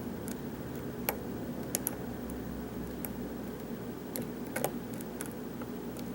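Small, irregular metallic clicks from a short hook lifting pins inside a Sargent-keyway challenge lock under pry-bar tension, about a dozen spaced unevenly, over a faint steady hum.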